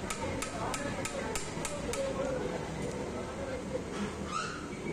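Hammer blows on steel tooling against a wheel hub's bearing lock nut as it is driven loose: about three sharp metallic strikes a second for the first two seconds, then a brief scrape near the end.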